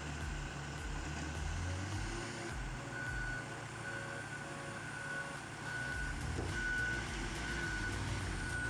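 A heavy machine's engine running steadily under a back-up alarm that beeps repeatedly, the beeps coming more often in the second half.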